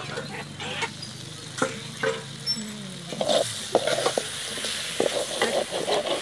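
Quail pieces in masala frying in an aluminium pot, sizzling and crackling as a metal ladle stirs and scrapes them, with the sizzle growing louder from about three seconds in. A couple of metal clinks come before it.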